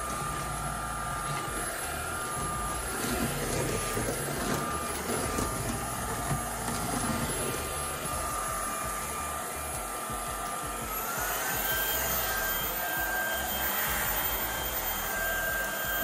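YONNDER E1 cordless stick vacuum running, a steady motor whine with the LED floor brush working over hardwood and a rug. About two-thirds of the way through, the motor's pitch steps up and stays higher.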